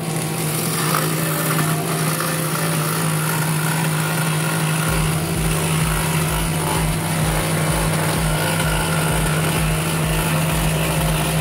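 Electric scroll saw running steadily with a low hum, its reciprocating blade cutting through a thin wooden blank.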